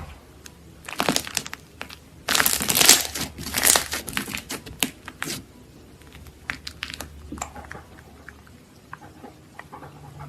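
Slime being squeezed and worked by hand, giving dense runs of quick crackles and pops from about one to five seconds in, then scattered single pops.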